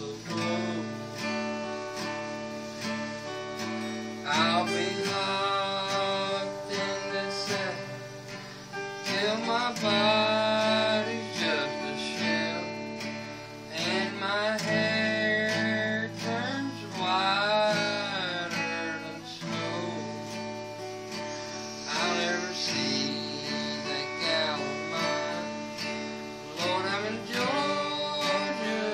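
Strummed acoustic guitar playing a slow country tune, with a lead melody line that bends and wavers in pitch, coming in phrases.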